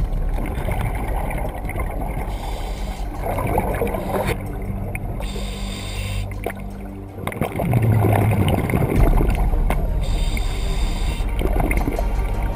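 Scuba diver breathing through a regulator underwater: short hissing inhalations, and a louder rumbling gurgle of exhaled bubbles about two thirds of the way through.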